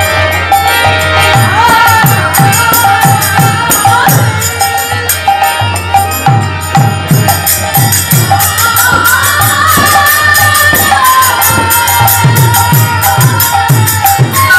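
Live kirtan: women's voices sing in chorus with a violin line, over the repeated deep strokes of a khol barrel drum and a steady jingling beat of small hand cymbals.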